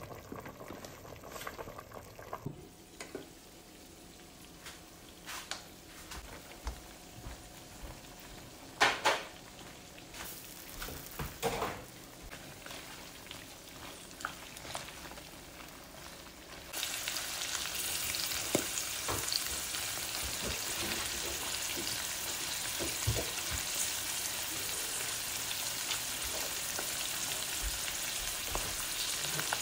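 Chunks of pork and green beans frying in a wok, with a few scrapes and knocks of a spatula against the pan. About halfway through the sizzle becomes much louder and then holds steady.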